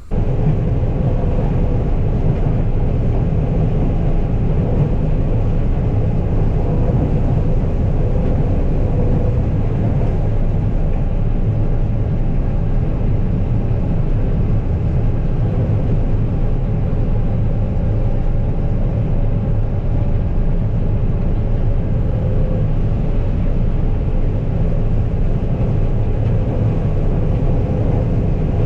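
Combine harvester running steadily while shelling corn: a loud, constant machine drone with a faint steady hum above it.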